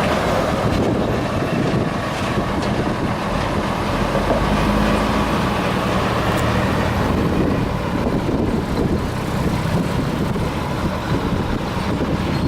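Dump truck's diesel engine running steadily.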